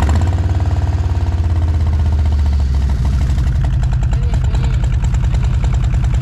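Harley-Davidson V-twin running through a Vance & Hines aftermarket exhaust, loud and pulsing. Its pitch falls over the first three seconds, then it settles into a steady idle.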